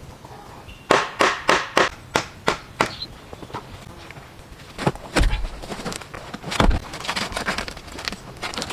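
Wood being struck and broken: a quick run of about seven sharp knocks, about three a second, then scattered knocks, two heavier thuds, and a dense crackle of small cracks near the end.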